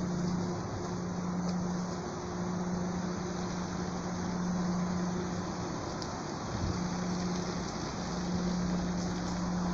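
Steady rush of river water running over rocks, with a low steady hum underneath.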